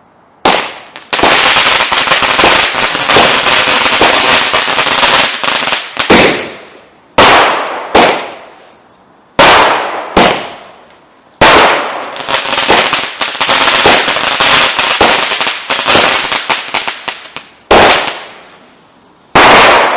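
TNT Fireworks 'Sonic' consumer firework cake (barrage) firing. Two long, rapid strings of loud bangs are broken up by single and paired reports, each trailing off as it echoes.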